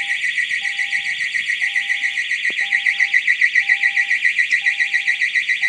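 Storage facility's security alarm sounding, very loud: a high-pitched tone pulsing rapidly, about eight times a second, with a fainter lower beep repeating about once a second underneath.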